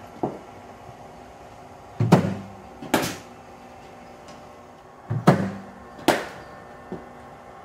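Two deliveries in a cricket net: each a thud as the bowling machine fires the ball, followed under a second later by the sharp crack of the bat striking it.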